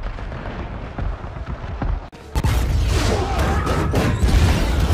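Film sound effects of explosions: a heavy low rumble, a brief drop about two seconds in, then a louder burst of blast noise with sharp impacts.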